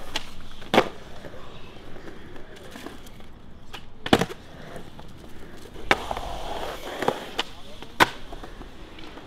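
Skateboard wheels rolling on concrete, broken by about four sharp wooden cracks of boards popping and landing on tricks, the loudest near the end.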